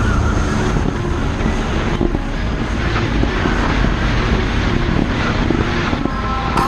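Bass boat's outboard motor running at high speed, a steady drone mixed with wind and water rush over the hull.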